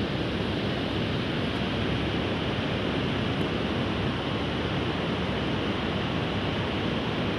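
Steady rushing of a whitewater mountain river tumbling over boulders.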